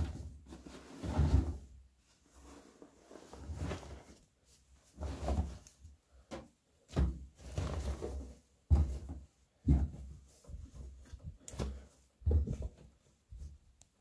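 Laundry being loaded by hand into a front-loading washing machine's steel drum: irregular rustling and soft thumps of fabric pushed in, with a few sharp clicks, as from buttons or zips knocking the drum.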